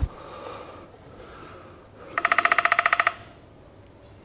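An electric telephone bell ringing once, a rapid metallic trill lasting about a second, starting about halfway through.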